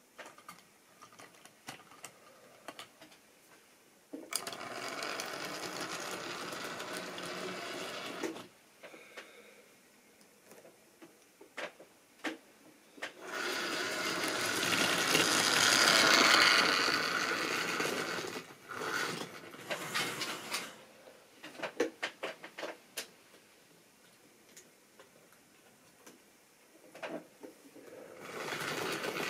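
Model railway train running on the layout's track: a small electric motor whirring with wheels clicking over rail joints. It passes close twice, louder about a third of the way in and again rising near the end, with scattered clicks between.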